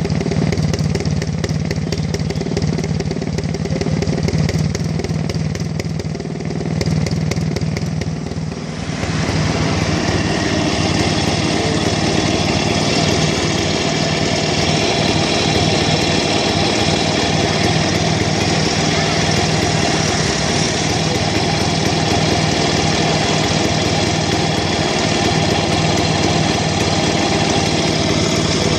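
Rajdoot 175's single-cylinder two-stroke engine running steadily through its exhaust. About nine seconds in, the sound becomes fuller and brighter and stays that way.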